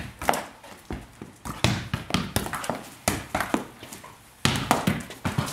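A soccer ball being bounced and knocked between a person and a Border Collie, with the dog's claws clattering on the hard tile floor: a quick, irregular run of knocks and taps, with a short lull about four seconds in.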